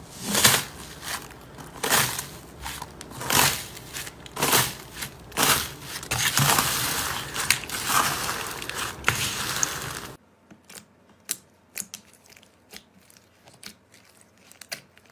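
Slime being pressed and squeezed by hand close to the microphone: a dense run of loud, crisp crackles and squishes. About ten seconds in it cuts to a quieter clip of sparse, small clicks and pops.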